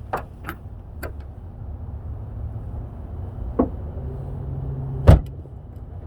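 A few light clicks, then a steady electric motor hum for about a second that ends in one loud thump: a Tesla Model 3's powered lid latch running and releasing.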